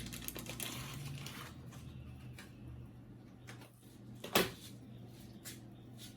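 Faint handling sounds of a printer fuser part being worked by hand: a soft rustle at first, scattered light clicks, and one sharper click about four seconds in.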